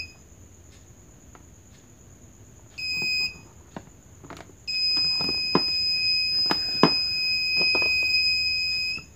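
A parking sensor display monitor's built-in beeper is sounding a steady, high-pitched warning tone: a short burst about three seconds in, then a long unbroken tone from about five seconds in until just before the end. This warns that an object is close to a sensor. A few knocks are heard along with it.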